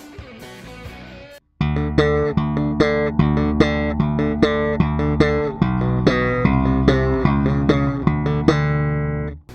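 Electric bass (Fender Jazz Bass) played slap-style through the Boss GT-1B's 'Mild' compressor setting: a run of sharply attacked, evenly sustained notes that starts after a short break about a second and a half in. Before the break, a quieter bass passage plays the end of the previous compressor setting.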